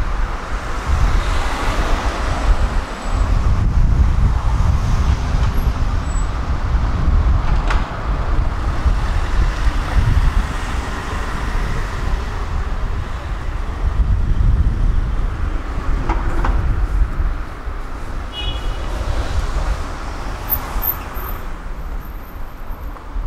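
Road traffic: vehicles passing one after another, each swelling and fading over a steady low rumble.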